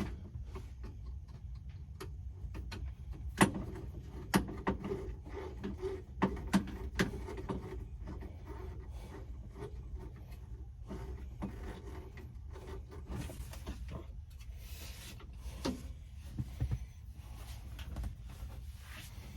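Scattered clicks, taps and rubbing from hand work on a truck's dash-mounted heater/AC control panel as its mounting screw is started by hand and driven in, over a steady low hum.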